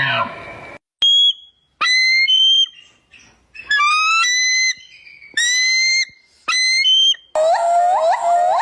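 An animal's whistled calls: about six short, clear whistles, each rising in pitch and cut off abruptly, with gaps of silence between. About three-quarters of the way in, a different call takes over: a rapid run of upward-sweeping chirps, about four a second.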